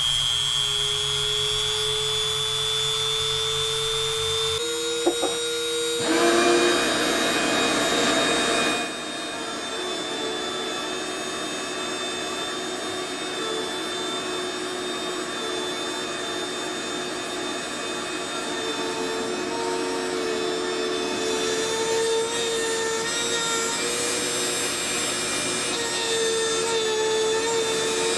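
Rotary-tool spindle of a Shapeoko 2 desktop CNC router running with a steady high whine while a 1/16-inch bit carves into plywood, with a shop vacuum running alongside from about six seconds in.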